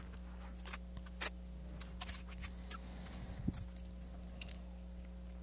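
Faint handling noise: a few light clicks and rustles as plastic wrap and tape over a bucket of resin are pressed and handled, over a steady low hum.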